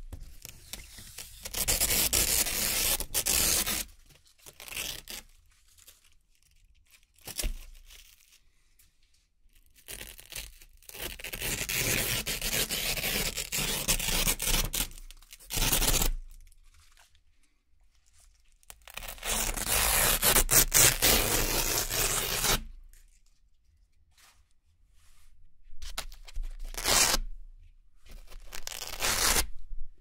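Hook-and-loop (Velcro) straps being ripped apart by hand, a run of long crackling rips lasting a few seconds each, with shorter tugs and pauses between.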